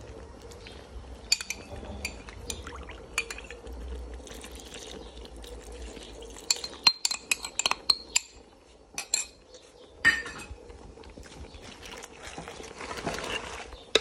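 A metal spoon clinking and scraping against a ceramic bowl, many quick clinks in a row around the middle, as the bowl's contents are scraped and poured into a pot of crawfish. Near the end a wooden spoon stirs the crawfish and shells in the pot.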